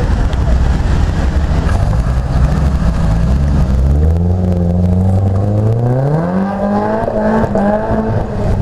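Car engines rumbling as cars pull away on a wet road. About halfway through, one engine accelerates hard, its pitch rising steadily for a couple of seconds and then holding high.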